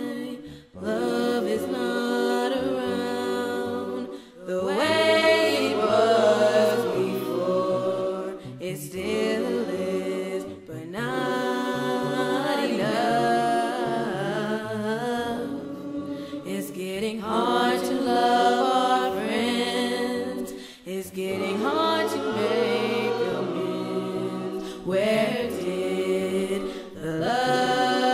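Church choir singing a hymn a cappella in harmony, unaccompanied voices in phrases a few seconds long with short breaks between them.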